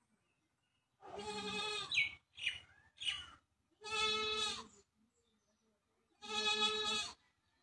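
An animal calling: three long pitched calls about two and a half seconds apart, with a few shorter calls between the first two.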